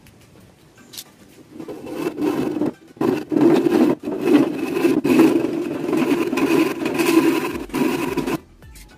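Hand saw cutting through a clamped wooden plank: a fast run of back-and-forth strokes starting about a second and a half in, broken by two short pauses, and stopping suddenly near the end.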